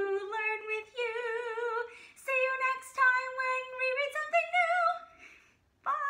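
A woman singing a goodbye song unaccompanied, with long held notes with vibrato. The song stops about five seconds in, and a short sung note starts right at the end.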